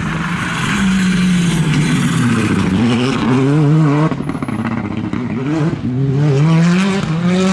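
Rally car engines under hard acceleration, the pitch climbing through each gear and dropping back at the shifts. A different car takes over about four seconds in.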